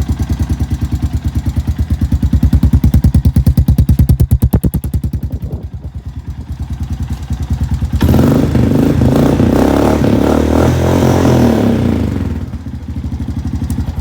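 Honda ATV single-cylinder engine with an HMF aftermarket exhaust, running just after a startup. It rises to a rev about two to five seconds in, drops back, then gives a longer, louder rev from about eight to twelve seconds in before settling back to idle.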